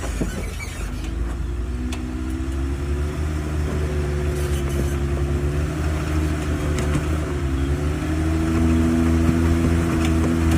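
Jeep engine running steadily with a low rumble, getting somewhat louder about eight seconds in.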